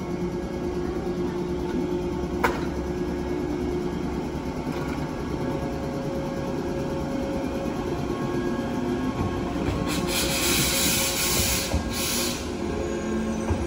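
A KuMoHa 123 single-car electric train runs slowly past on the station track, with a steady hum. There is one sharp click about two and a half seconds in, and a hiss for about two seconds near the end.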